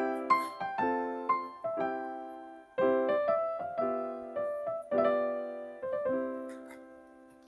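Background music: gentle electric piano chords and melody, struck in short phrases that ring and fade.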